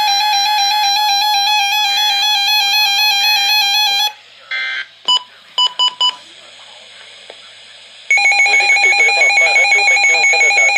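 Loud electronic alert tones. A steady, stepped, buzzy tone sounds for about four seconds and breaks off. A few short blips and beeps follow over a quiet gap. From about eight seconds in, a loud alarm tone pulses about four times a second.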